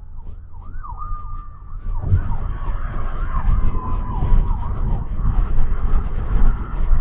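A siren sounding in quick up-and-down sweeps with one short held tone, over the road and engine noise of a moving car heard from inside the cabin. The road noise grows louder about two seconds in.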